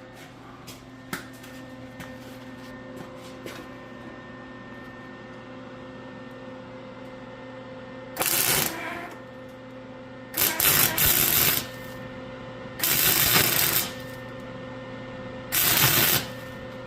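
Four short bursts of MIG welding, each lasting under about a second and a half, made with the shielding gas turned off. A steady electrical hum runs underneath.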